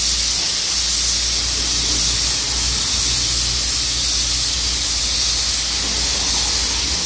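Gravity-feed compressed-air spray gun hissing steadily as it sprays clear varnish onto a polished headlight lens, with a low hum underneath that stops near the end.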